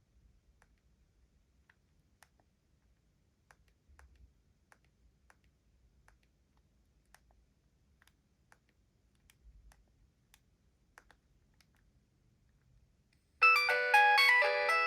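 Faint, scattered clicking. About thirteen seconds in, a Nokia 7250i's preloaded polyphonic ringtone starts playing loudly, a quick melody of bright synthesized notes.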